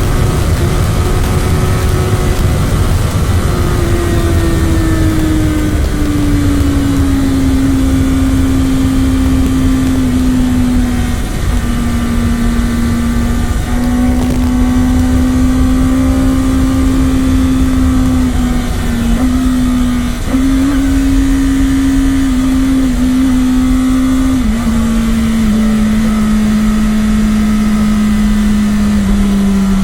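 Kawasaki Ninja ZX-10R's inline-four engine with its stock exhaust running loud and steady at high revs. Its pitch eases down over the first several seconds, then holds with a few small steps and settles a little lower near the end, over a constant low rumble.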